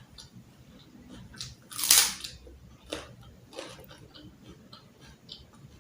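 Close-up eating sounds: biting and chewing crunchy food, with scattered small crunches and clicks and one loud crunch about two seconds in.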